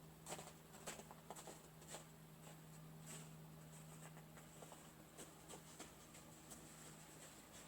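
Near silence: room tone with a faint steady hum and scattered faint ticks and scratches.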